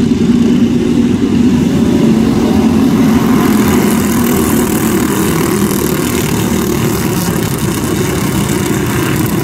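A pack of quarter midget race cars running together on a dirt oval, their small single-cylinder engines buzzing steadily at racing speed. The sound grows brighter and closer a few seconds in as the cars pass nearby.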